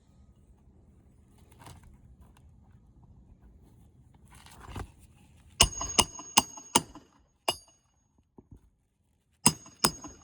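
A hammer striking roofing nails with a metallic ring: five quick blows about halfway through, after a brief scrape, then two more near the end.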